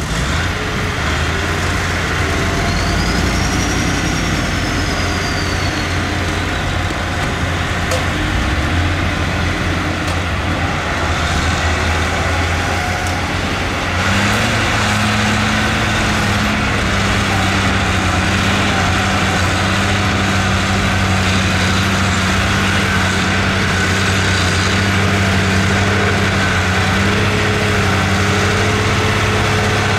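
Heavy earthmoving machinery's diesel engine running steadily under work. About halfway through, its note steps up and grows louder as it takes more load or revs, then holds there.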